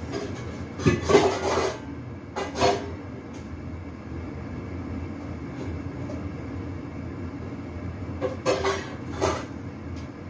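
A steady low rumble in the kitchen, with short loud bursts of noise or clatter about a second in, about two and a half seconds in, and twice near the end.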